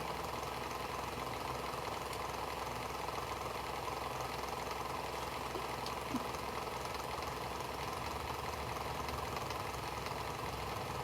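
A steady mechanical hum with hiss, like a small motor or fan running, unchanging throughout; a single faint click about six seconds in.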